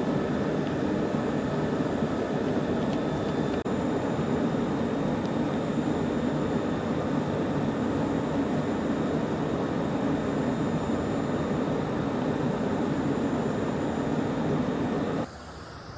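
Steady mechanical noise, even and without rhythm, that cuts off abruptly near the end.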